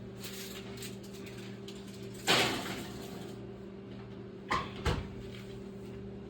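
Oven door opened with a rattling scrape, then two sharp knocks as the casserole pan goes in and the door shuts, over a steady low appliance hum.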